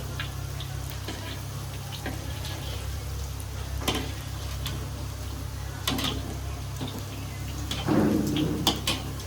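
Spinach pakoras frying in hot oil, a steady sizzle with scattered crackles. A few sharp utensil knocks come in the second half, loudest near the end.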